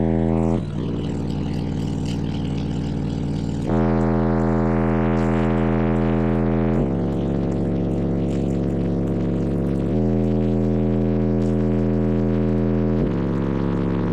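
Car audio subwoofers (six DC Audio Level 5 12-inch subs) playing held low bass notes, loud and heavily distorted, stepping to a new pitch about every three seconds.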